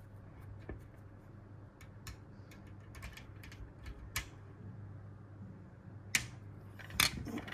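Small Phillips screwdriver turning the screw that joins the antenna's center conductor sections, making scattered light metallic clicks and ticks, with a couple of louder clicks near the end.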